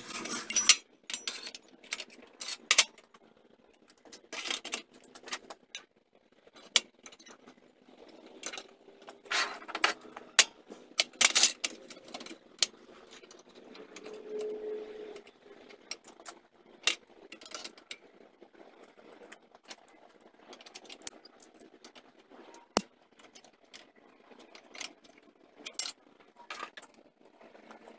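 Irregular metallic clinks and clanks of steel bracket pieces and locking pliers being handled and set down on a steel welding table, with a denser run of louder clanks near the middle, as the cab-mount pieces are positioned and clamped for welding.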